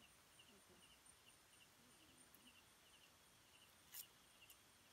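Near silence with faint night insects chirping: short pulsed trills repeating about twice a second. A single sharp click comes about four seconds in.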